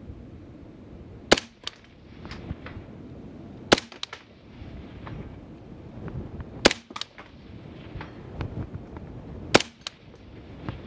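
Four rifle shots from an AR-15-style rifle firing 55-grain .223/5.56 ball, roughly every two and a half to three seconds. Each shot is followed a fraction of a second later by a softer crack, and wind rumbles beneath throughout.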